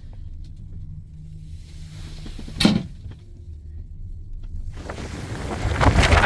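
Strong mountain wind buffeting the microphone, setting in loudly about three-quarters of the way through and gusting on. Before that there is a low rumble and a single sharp knock a little before halfway.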